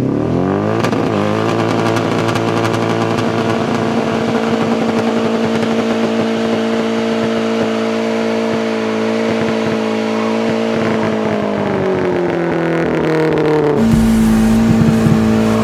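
Mazda Miata's four-cylinder engine revved up hard for a burnout and held at high rpm for about ten seconds, then the revs sag and the sound changes abruptly shortly before the end.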